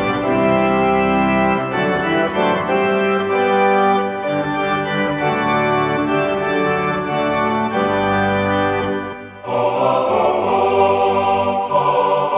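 Background music: an organ playing slow, sustained chords. About nine and a half seconds in, the music moves into a fuller passage and a choir joins.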